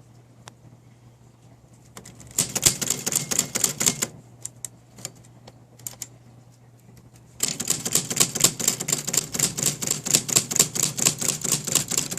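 1933 Smith Corona flat-top portable typewriter being typed on: a few single key strikes, then a short burst of rapid keystrokes, and from about halfway through a longer run of quick, steady typing.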